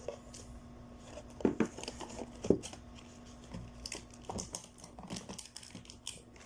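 Packaging of a new phone box crinkling and tearing as it is unwrapped, in short rustles, with two sharper knocks about one and a half and two and a half seconds in.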